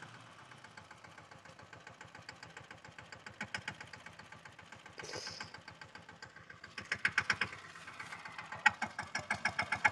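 An engine running with an even pulsing beat, growing louder from about seven seconds in, with a short hiss about five seconds in.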